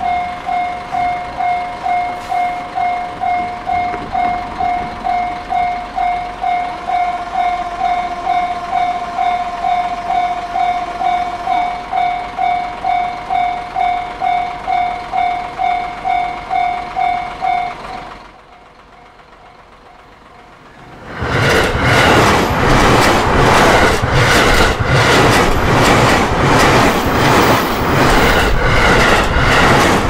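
A railway level crossing's warning bell rings at about two strikes a second and stops about eighteen seconds in. After a short lull, an electric commuter train on the JR Takasaki Line passes close by, loud, its wheels clattering fast over the rail joints.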